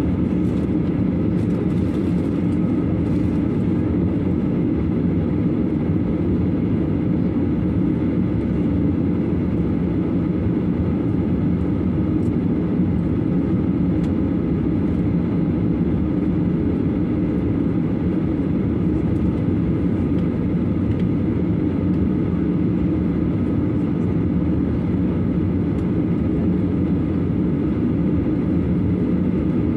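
Airliner's jet engines heard from inside the passenger cabin as a steady, unbroken low drone while the plane taxis toward the runway before take-off.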